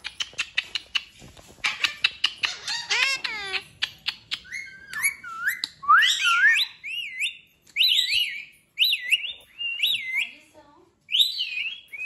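Indian ringneck (rose-ringed) parakeet calling. After a quick run of clicks, it gives a string of short whistled, warbling calls that swoop up and down in pitch, with brief pauses between them.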